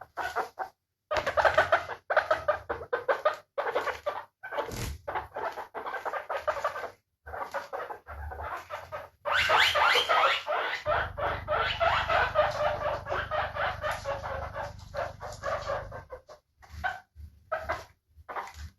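Guinea pig squeaking in quick series of short, high calls, broken by brief pauses, with a long unbroken run of calls in the middle.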